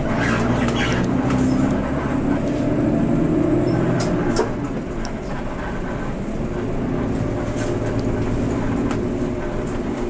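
A coach's diesel engine running, heard from inside the cabin as it drives; the engine note eases off about four seconds in and picks up again, with a couple of sharp rattles around the same time.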